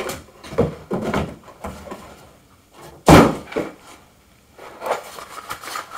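Cardboard packaging being handled: several short scrapes and rustles of boxes and a pulp insert, with one loud thump about three seconds in.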